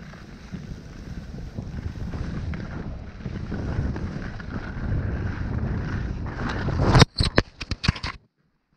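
Wind buffeting an action camera's microphone over the steady rumble of sliding down packed snow, then a crash: a cluster of loud knocks and thuds about seven seconds in as the skier falls and the GoPro hits the snow, a fall that breaks its mount. The sound then cuts out almost completely.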